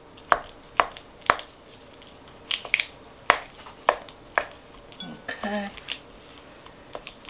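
Wooden spoon knocking and scraping against a ceramic mixing bowl as lumps of butter are broken up and creamed by hand, in irregular sharp taps about two a second.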